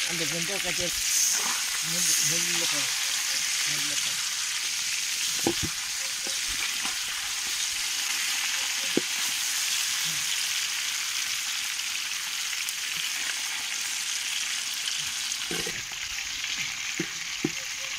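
Whole masala-coated fish sizzling steadily as it fries in oil in a large aluminium pot, with a few sharp clicks as a slotted metal spoon turns it.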